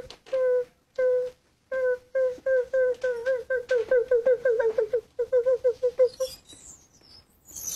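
Trolley wheel squeaking as it is pushed along: a short squeak with each turn, coming faster as the trolley speeds up, then stopping about six seconds in. Faint high-pitched chirps follow near the end.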